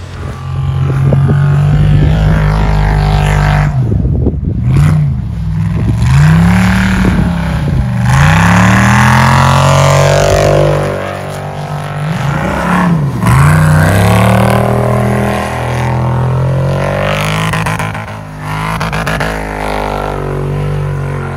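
Ultra4 race buggy's engine revving hard, its pitch rising and falling several times as it drifts on the ice. Background music runs underneath.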